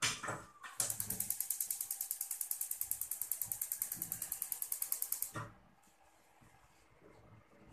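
Gas hob's electric spark igniter clicking rapidly and evenly, several clicks a second, while the burner knob is held in. The clicking stops suddenly after about four and a half seconds.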